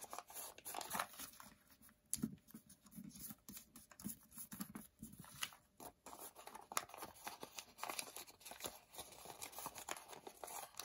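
Faint, irregular crinkling and rustling of pleated origami paper being handled and folded by hand.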